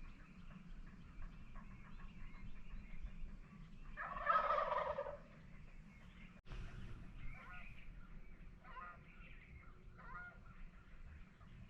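Wild turkey gobbling once, loud and about a second long, about four seconds in. After a brief break, several fainter, shorter turkey calls come at roughly one-second intervals.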